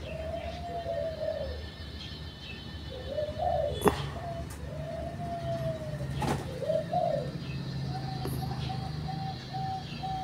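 Doves cooing: a run of short coos that rise and fall, repeating every second or so. Two sharp clicks come about four and six seconds in, over a low steady hum.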